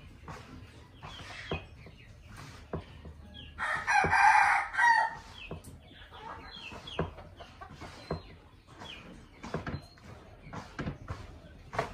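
A young red junglefowl cockerel crows once, a call of about a second and a half that ends abruptly, a 'cut-off' crow still in the learning stage. Scattered short clucks and sharp knocks from the caged birds come before and after it.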